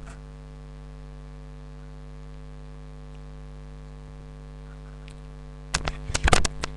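Steady electrical mains hum with its overtones in the microphone. Near the end comes a quick cluster of clicks and knocks as a headphone splitter and jack cable are handled.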